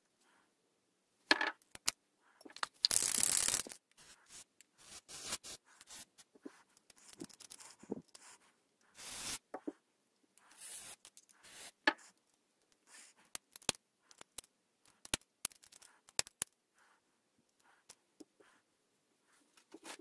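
Aerosol can spraying lubricant onto a Master Lock No. 77 padlock in short hissing bursts, the longest just under a second about three seconds in, with others around nine and eleven seconds. Between the bursts come many sharp metallic clicks and clinks as the lock's shackle and keys are worked.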